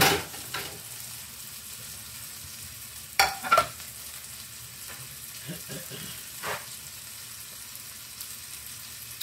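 Sausage patties sizzling in a frying pan, a steady hiss. A sharp knock at the start, then two loud clacks a little over three seconds in as a ceramic plate is set down on the counter, and a few lighter clicks after.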